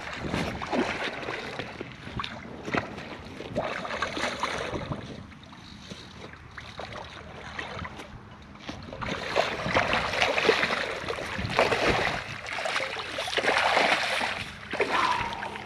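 Wind buffeting the microphone over splashing water. The splashing comes in irregular bursts and grows louder in the second half as a hooked carp thrashes at the water's edge.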